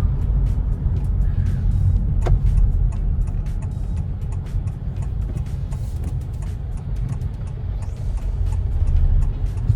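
Cabin noise inside a Honda Elevate on a city drive: a steady low rumble of road and engine noise, with faint scattered clicks over it.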